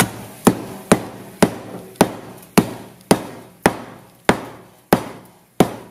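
Hammer striking a frost-covered, cracked iPhone 6S lying on a towel: about eleven sharp blows at a steady pace of roughly two a second, each dying away quickly.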